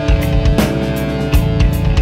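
Instrumental post-metal: guitars holding chords over bass and drums, with a few heavy drum and cymbal hits.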